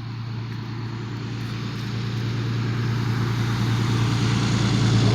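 A car approaching on the road, its tyre noise and low engine hum growing steadily louder and peaking near the end.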